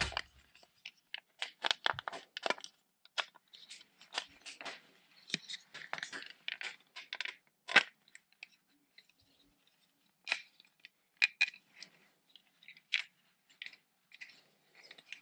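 Fingers working an interchangeable lens into a Das Optics sunglasses frame: irregular small clicks, creaks and scrapes. They come thickly in the first half and more sparsely later, with the sharpest click a little before the middle.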